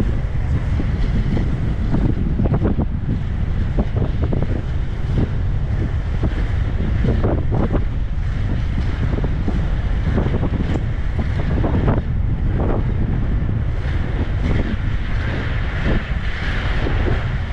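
Heavy wind buffeting on the microphone of a camera carried by an inline speed skater at around 30 km/h. Under it runs a rumble of skate wheels on asphalt, with short irregular scrapes from the skating strokes.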